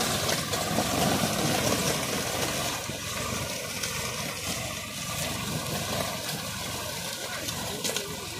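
Massey Ferguson 241 tractor pulling a two-disc hydraulic reversible disc plough through dry soil, its engine running under load, heard as a steady rushing noise.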